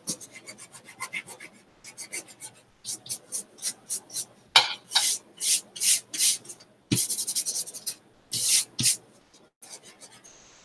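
Hands rubbing over a paper collage card to rub off excess gold leaf: a series of brisk rubbing strokes on paper, with a quick run of strokes about seven seconds in, dying down near the end.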